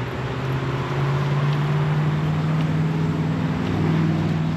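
Compact track loader's diesel engine running steadily while grading, its pitch stepping up about a second in as it revs higher.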